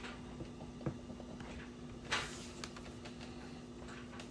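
A couple of light clicks and a brief scrape about two seconds in, over a steady low hum.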